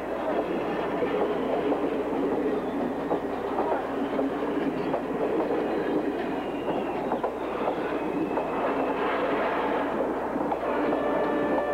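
Passenger train running along the track, its coach wheels clattering over the rail joints in a steady rumble. A few steady tones come in near the end.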